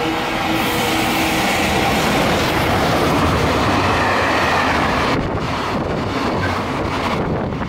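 Container freight train running through a station at speed: a steady rush and clatter of wagons and wheels, with the locomotive's held horn fading out in the first two seconds. From about five seconds in, the train's slipstream buffets the microphone with gusts of wind noise.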